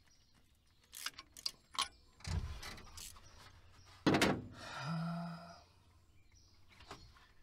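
Hand tools clicking and clanking on the engine as a ratchet and spark plug are handled, with a sharp clank about four seconds in and a short low hum just after it.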